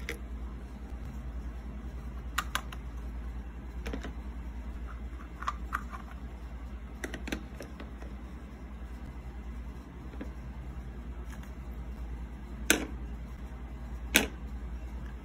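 Light clicks and taps of small plastic toy kitchen pieces (pots, lids, utensils) being set down on a plastic toy stove, scattered through, with the two sharpest clicks near the end. A low steady hum lies underneath.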